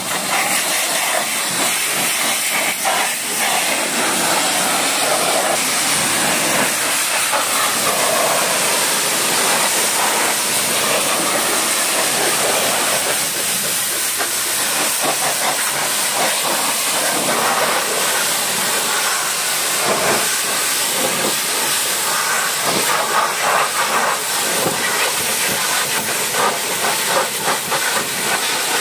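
High-pressure washer lance spraying water onto a car's rear bumper, side panels and wheel: a steady, unbroken spray noise.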